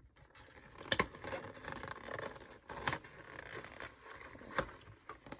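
A paperboard box being opened by hand: paper scraping and rustling as the flaps are worked loose, with three sharp clicks at about one, three and four and a half seconds in.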